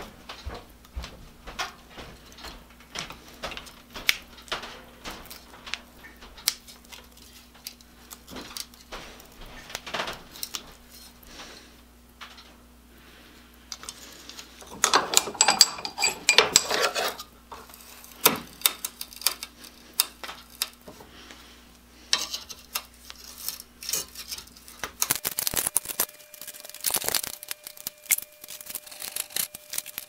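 Steel pliers clicking and scraping against a bench vise and small metal parts as copper wire is worked off a powdered-iron choke core. About halfway through there is a louder stretch of scraping and rattling.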